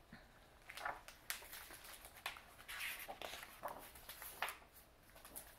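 Faint rustling and soft taps of a hardcover picture book being handled, its cover opened and first pages turned.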